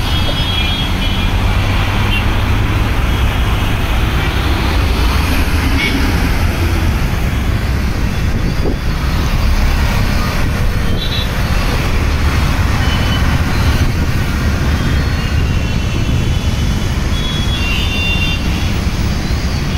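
Steady road traffic on a rain-wet city flyover: motorbikes, buses and auto-rickshaws passing, with a continuous low rumble and the hiss of tyres on wet tarmac. A few faint high beeps come near the start and again near the end.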